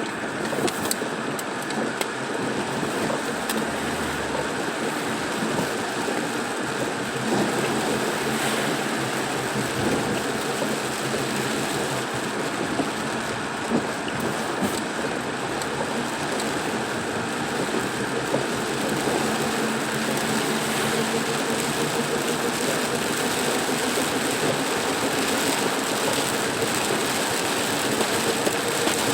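Rain beating on a vehicle on the road: a steady rush of rain and road noise with the engine's hum underneath.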